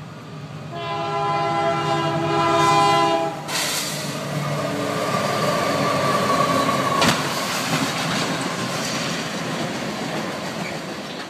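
Diesel freight locomotive's horn sounding one long chord for about two and a half seconds, then the loud rumble of the train passing. About seven seconds in comes one sharp bang, the train striking a truck at the crossing.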